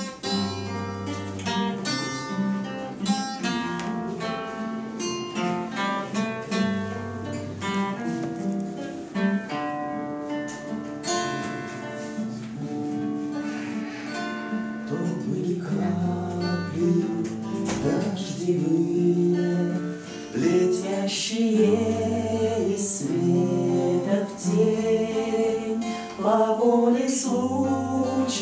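Two acoustic guitars playing a bard song, picked and strummed in a steady rhythm with a moving bass line. Singing voices come in about halfway through.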